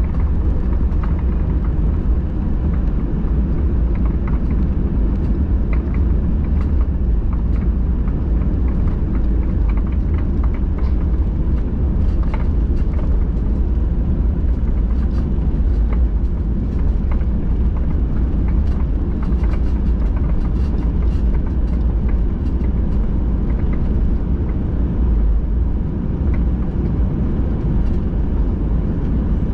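Steady low rumble of cabin noise inside a Boeing 737-800, from its CFM56 engines and the airframe, with faint scattered rattles.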